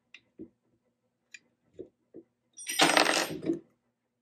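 A few light clicks and taps of metal tools on metal, then about a second of loud metallic clattering and jingling from small loose metal parts, while the CNC router's original Z-axis carriage is being unbolted.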